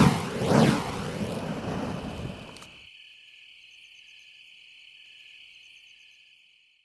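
Burning fire poi whooshing as they swing past, two loud passes in the first second and then softer ones, cutting off suddenly about three seconds in. After that, a faint steady high chirring of insects that fades out near the end.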